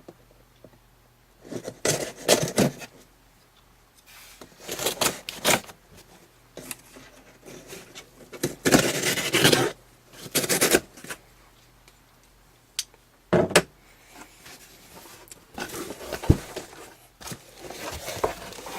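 A mailed package being opened by hand: several bursts of scraping, ripping and rustling packaging, then a few sharp clicks near the middle.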